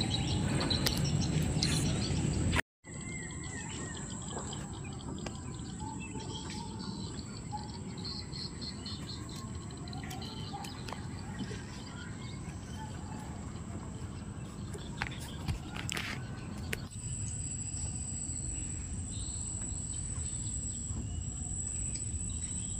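Mangrove forest ambience: scattered bird chirps over a steady high-pitched insect buzz. The sound cuts out for a moment about three seconds in, then resumes a little quieter.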